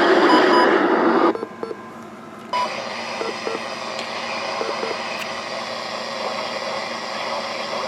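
Weather radio receiver on weak reception: loud crackly static that cuts off about a second in, a short beep a little later, then steady radio hiss for the rest.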